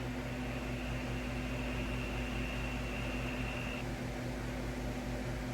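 Steady low electrical hum with a thin high whine that cuts off a little under four seconds in.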